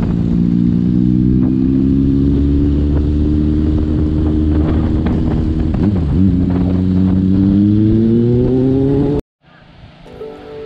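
Motorcycle engine heard from the rider's seat while riding, its note slowly climbing, dipping briefly about six seconds in, then rising again. It cuts off abruptly near the end.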